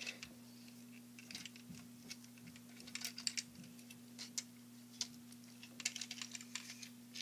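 Faint, irregular small clicks and rattles of plastic LEGO parts as a built LEGO jeep is handled and turned over in the hand, over a steady low electrical hum.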